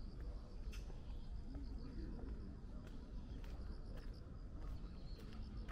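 Insects chirring in a steady, high, even trill over a low outdoor rumble, with a few light clicks.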